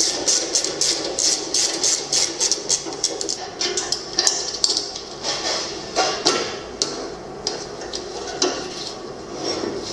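Rapid light taps and knocks of hand tools on metal parts, about three or four a second at first, then sparser and irregular, with a few louder knocks midway.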